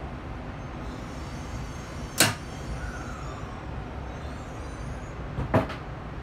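Steady low rumble inside a car of an N700S Shinkansen moving along the station platform as it pulls out. Two sharp knocks stand out, one about two seconds in and a double one near the end.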